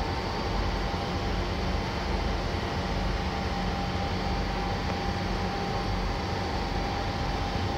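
SMRT C651 train standing with its traction motors at zero torque: a steady hum and whir from the car's onboard equipment and air conditioning, with a thin steady high tone over it.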